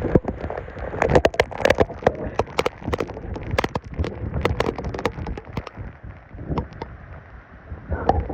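Rain falling, with many irregular sharp ticks of drops striking close to the microphone.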